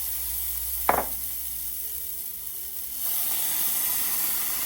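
Crêpe batter sizzling on a hot griddle, with a sharp knock about a second in; the sizzle gets louder about three seconds in.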